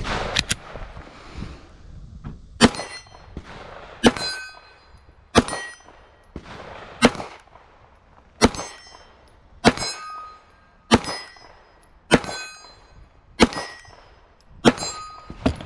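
Pistol shots fired at a slow, steady pace, about a dozen of them, roughly one every second and a half. Each shot is followed by the brief ringing clang of a steel plate target being hit.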